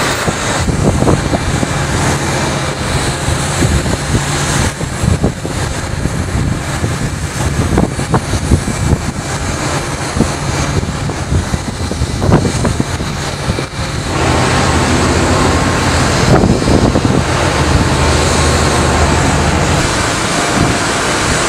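Loud, steady rush of wind on the microphone over a low droning machinery hum, with a few brief sharp thumps; the sound shifts at a cut about fourteen seconds in.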